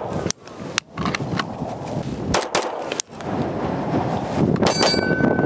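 Atlas Gunworks Erebus 4.6-inch compensated 2011 pistol fired in controlled pairs: two shots in quick succession, then a pause, repeated several times. A steady high ringing tone starts near the end.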